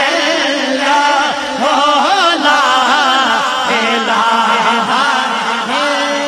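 A man chanting an Islamic devotional recitation into a microphone, drawn-out melismatic phrases with heavy vibrato, a steady lower tone held underneath.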